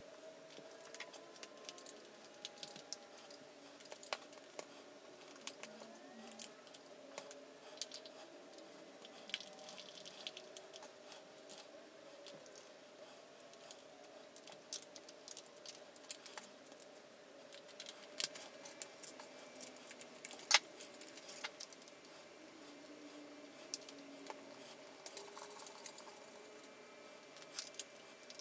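Small scattered clicks and ticks of screws being tightened into the plastic gearbox casing of a Tamiya Comical Grasshopper RC kit, with parts handled on the bench. A faint steady hum runs beneath.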